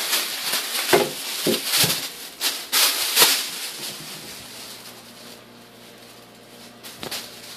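Thin plastic bag crinkling and rustling as it is grabbed and pulled about, in a rapid string of crackles for the first three or four seconds. Then it quiets to a faint low hum, with a single click near the end.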